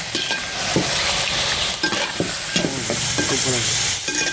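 Marinated chicken pieces and onions sizzling in hot groundnut oil, stirred in the pan with repeated scraping strokes, as the chicken half-cooks and releases its water.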